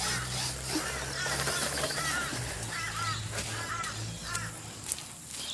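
A bird calling in a run of short rise-and-fall notes, over a low steady hum that fades out near the end.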